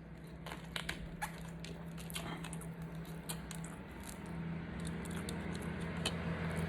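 Close-up eating sounds: chewing and crunching fried chicken and handling the food by hand, heard as scattered small crackles and clicks. A steady low hum sits underneath and grows louder over the last few seconds.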